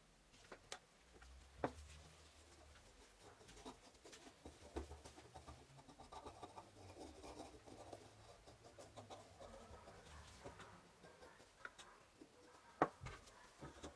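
Faint scraping and rubbing of a wooden stir stick spreading glue over a wooden handle scale, with a few light clicks and taps, the sharpest near the end.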